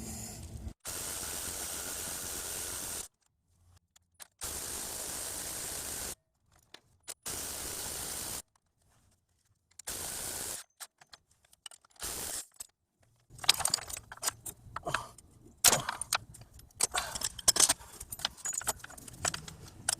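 Steady hiss that cuts in and out abruptly several times. Then, about two-thirds of the way in, a run of light metallic clinks, knocks and rattles as the strut assembly's parts are handled and fitted together.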